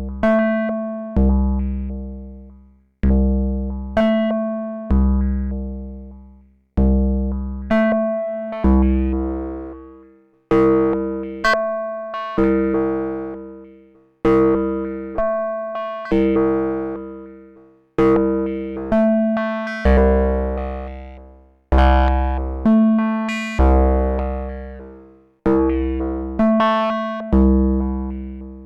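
Eowave Quadrantid Swarm hybrid synthesizer playing a step-sequenced pattern: pitched notes that start sharply and die away, roughly one a second, many with a deep bass underneath.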